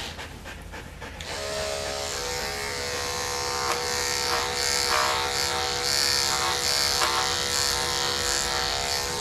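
Electric dog grooming clippers running with a steady hum while clipping a dog's short coat around the head. The hum drops out at the start and comes back about a second in, with a higher hiss that swells and fades again and again as the blade works.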